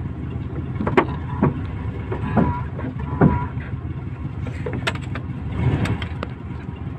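A 1960s Volkswagen Beetle's air-cooled flat-four engine running steadily, heard from inside the car. About six sharp knocks and clunks come through over it, the loudest about a second in and just past three seconds in.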